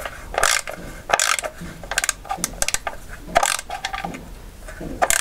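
Hand ratchet clicking in short back-and-forth strokes as a socket turns a bolt on an automatic transmission pan.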